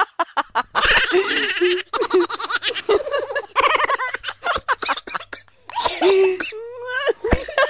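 Laughter and giggling in repeated short bursts.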